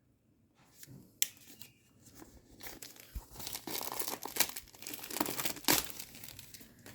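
Earphone retail packaging being unpacked by hand: paper and plastic crinkling and rustling for a few seconds, after a single sharp click about a second in.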